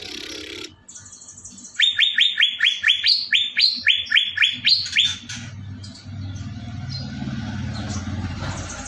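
A songbird singing a fast run of about a dozen short rising notes, some four a second, after a short rushing noise near the start. A low rumble follows in the last few seconds.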